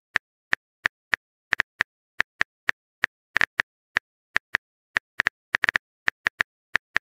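Simulated phone-keyboard typing clicks from a texting-story app: short, identical key taps at an uneven pace of about four a second, some in quick clusters, with dead silence between them.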